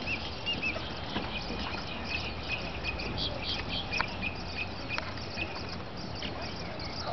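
Common moorhen chicks peeping: many short, high calls repeated irregularly, with a few sharp clicks, over a low steady background hum.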